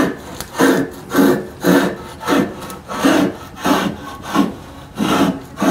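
A 6-inch Stanley block plane shaving along a softwood paddle shaft in about ten short, even strokes, nearly two a second. The iron is set to take a little too aggressive a cut, lifting thick shavings.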